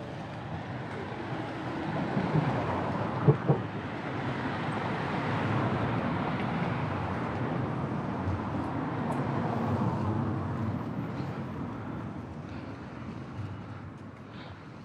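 Skate wheels rolling over rough pavement: a steady rumble that grows louder over the first couple of seconds and fades in the last few. Two sharp knocks come about three seconds in.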